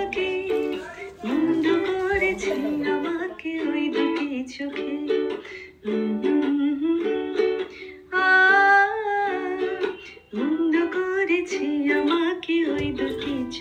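Background music led by a plucked string instrument like a ukulele, playing a bright melody.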